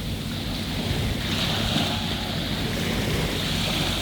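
Sea waves washing onto a sandy beach, with wind buffeting the microphone as a low rumble.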